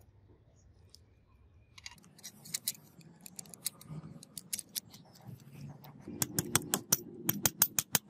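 Small metal parts clicking and clinking as a brass knife guard and fittings are handled and fitted onto the steel blade's tang. The clicks begin about two seconds in and come quick and dense near the end.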